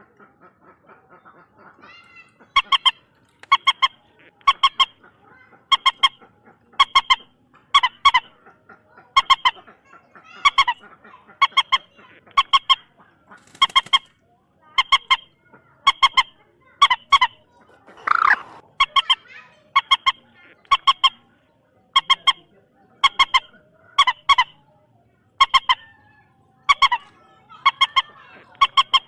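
Common moorhen calling: a loud, short, harsh honking note, often doubled, repeated about once a second, starting a couple of seconds in.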